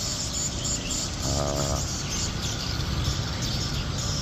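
Insects chirping steadily in a fast, high-pitched pattern over a low steady rumble, with one short pitched call about a second and a half in.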